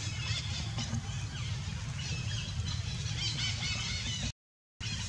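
Many short, high chirping animal calls over a steady low rumble, cutting out completely for about half a second near the end.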